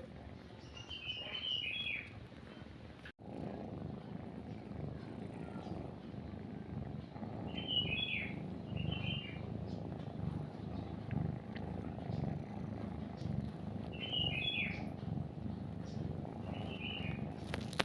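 A cat purring close up, a continuous low rumbling pulse that breaks off for a moment just after three seconds and then runs on. Over it a small bird gives short chirping phrases, about five in all.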